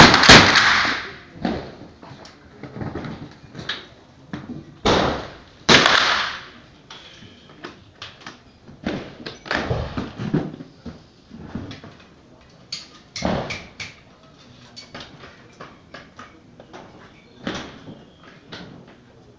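Rifle shots echoing under a covered shooting range firing line: a loud shot right at the start, two more about five and six seconds in, then several quieter shots and knocks.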